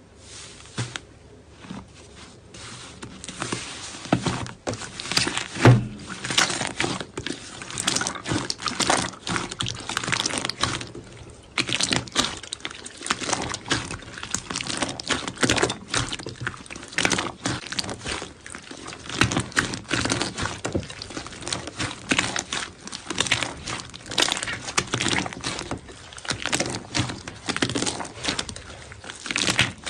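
Slime being squished and worked: a dense, irregular run of wet clicks, pops and crackles, quieter for the first couple of seconds.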